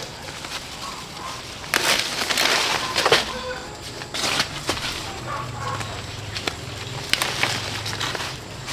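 Rustling and crunching noises, loudest for about a second and a half starting near two seconds in, followed by a few scattered sharp clicks.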